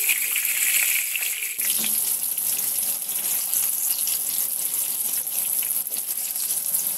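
Brinjal slices sizzling and crackling as they shallow-fry in hot mustard oil in a pan.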